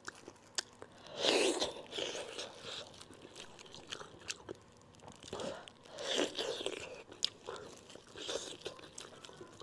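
Close-miked eating sounds: bites and chewing of braised monkfish in a few short bouts, with small clicks as gloved hands pull the fish apart.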